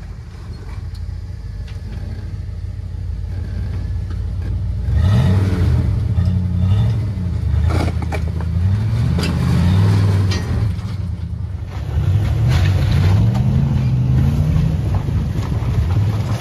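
Full-size Ford Bronco engine revving up and down in swells while it crawls over loose rocks in low gear. A few sharp knocks and clunks of rock under the tyres come near the middle.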